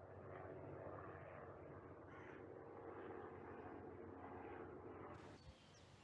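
Crows cawing in a run of repeated rough calls that stops abruptly about five seconds in, leaving faint high bird chirps.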